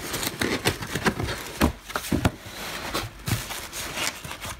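Cardboard box being opened by hand: irregular scrapes, knocks and rustles as the lid and flaps are lifted and folded back.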